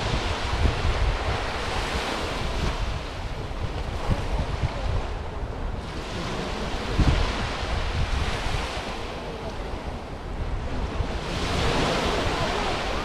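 Small sea waves washing onto a sandy beach, coming in about three surges that swell and fall back. Wind buffets the microphone with a constant low rumble.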